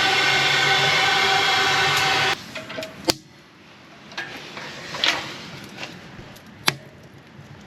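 MAP gas torch burning with a loud, steady roar while lighting the fire in a wood stove, shut off abruptly about two seconds in. A few sharp knocks and clicks follow.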